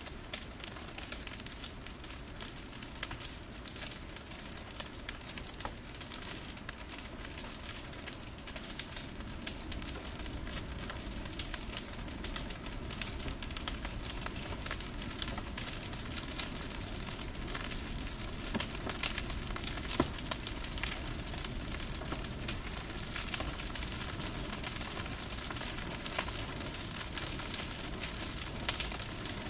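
Firewood burning: a steady hiss with many small crackles and pops, and one louder pop about two-thirds of the way through.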